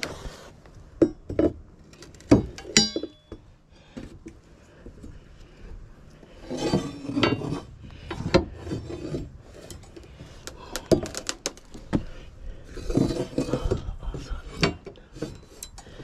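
Steel pry bar knocking and scraping against deck boards and joists: scattered sharp metallic clinks, one ringing clang about three seconds in, and two longer rasping scrapes of metal and wood.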